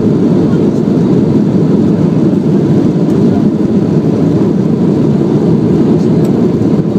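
Cabin noise of a Boeing 737-800 on the runway, heard from a window seat over the wing: a loud, steady low rumble of its CFM56 turbofan engines and rushing air, with a faint steady whine above it.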